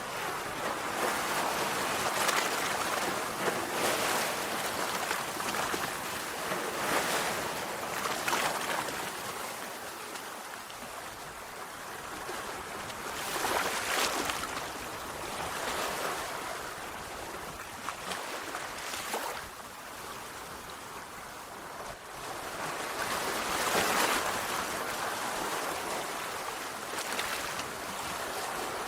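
Sea waves breaking and washing up a shore, a steady wash with louder surges every few seconds, the biggest near the middle and again near the end.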